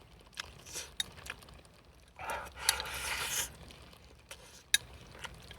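Mealtime handling sounds: utensils clicking against a bowl a few times, with a longer scraping, rustling noise for about a second near the middle.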